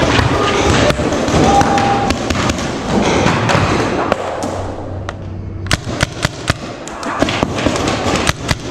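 Paintball markers firing: sharp pops in quick, uneven bursts from about six seconds in, after several seconds of dense, noisy sound.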